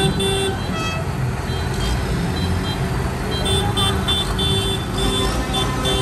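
Low rumble of Massey Ferguson tractors' diesel engines passing slowly, with runs of short, quick toots or beeps repeated several times a second, at the start and again from about halfway in.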